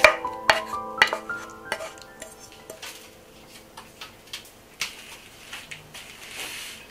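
A utensil clicking and scraping against a glass mixing bowl while sautéed vegetables are stirred into a mashed tofu filling: irregular light clicks, denser and louder in the first couple of seconds, then sparser.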